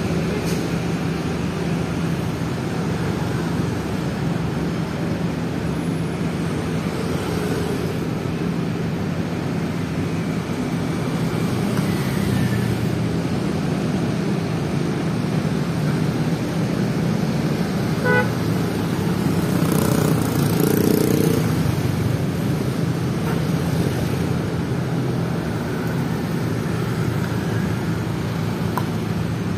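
Diesel engines of tour coaches idling and creeping forward in a slow traffic queue, a steady low rumble, with a short horn toot about twenty seconds in.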